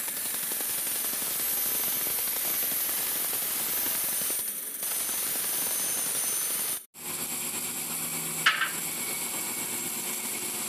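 Woodworking machinery running, a dense, hissy machine noise from a cutting machine working a board. About seven seconds in it changes abruptly to a steadier machine hum, with one sharp knock a second and a half later.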